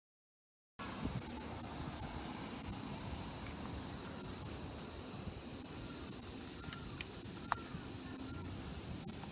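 Steady high-pitched insect chorus starting just under a second in after a moment of dead silence, with a few faint short chirps and a single sharp tick later on.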